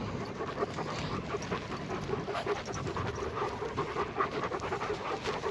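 Working sheepdog panting.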